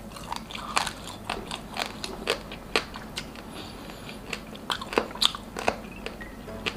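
Close-miked eating of grilled meat: biting and chewing, with irregular sharp, moist clicks and crunches several times a second.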